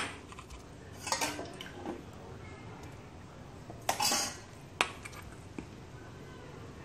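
Steel spoon and ladle clinking and scraping against a stainless-steel bowl and pot: a sharp clink at the start, a short clatter about a second in, a longer rattle about four seconds in and another clink soon after.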